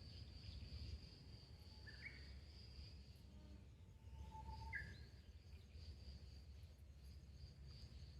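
Quiet outdoor ambience: a steady high-pitched insect trill, with two short bird chirps about two and five seconds in, over a low rumble.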